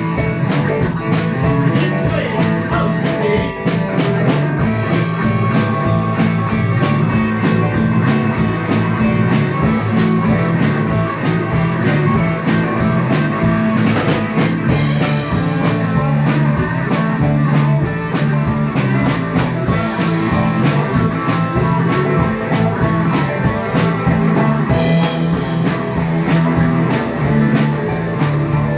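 Rock band playing an instrumental stretch of a boogie shuffle, with no singing: electric guitar, bass and drum kit keep a steady beat over a repeating bass line, with the cymbals getting brighter about five seconds in.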